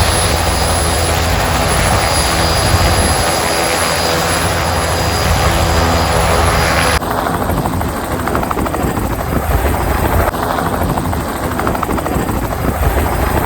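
Helicopter running close by, a loud steady noise of rotor and turbine with a deep throb underneath. About seven seconds in the sound turns abruptly duller, losing its hiss.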